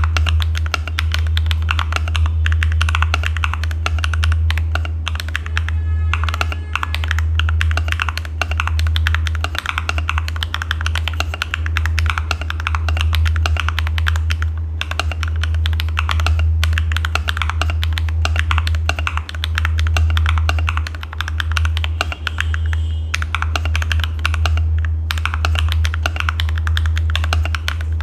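Continuous fast typing on an Akko ACR59 mechanical keyboard in HHKB layout with stock HMX Hydra switches: a steady stream of key clacks with a few short pauses, over a steady low hum.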